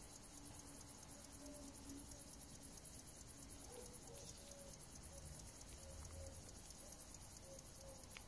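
Faint, steady, high-pitched chirring of crickets, a fast even pulsing that carries on throughout.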